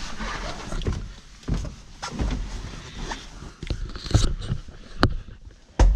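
A person climbing into a newly installed car bucket seat: rustling, creaks and scattered knocks, with a heavy thump near the end.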